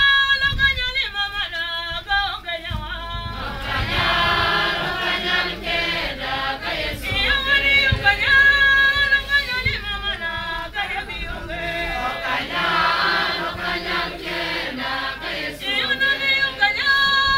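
A group of women singing a hymn together. One woman's voice carries the line alone into a microphone at times, and the rest of the voices join in around four seconds in and again after about twelve seconds.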